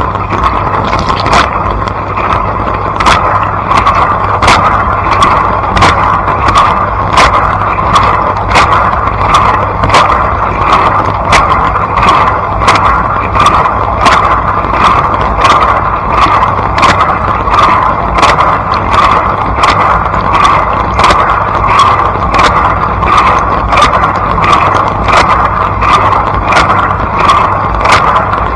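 Blanco dishwasher running its wash cycle: water spraying and splashing over a steady low pump hum, with a sharp tick repeating evenly about every 0.7 seconds.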